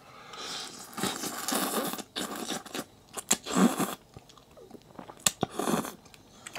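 A person slurping ramen noodle soup, sucking noodles up from the bowl in several irregular slurps with chewing between them.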